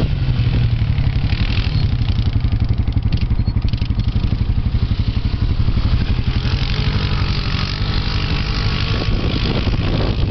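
ATV (quad bike) engine running steadily as it drives across sand, with a rapid low pulsing.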